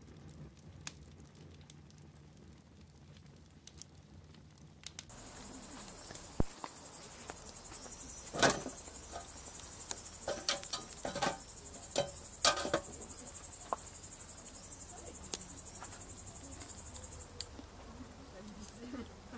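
Crickets chirping in a steady high-pitched trill that sets in about five seconds in. A few sharp clicks sound over it, the loudest near the middle.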